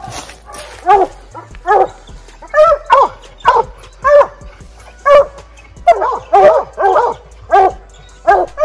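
Several bear hounds barking treed at the base of a tree: a run of short barks, about one a second, coming closer together and overlapping in the later part as more than one dog barks at once. The barking is the treed bay, the sign that the hounds have a bear up the tree.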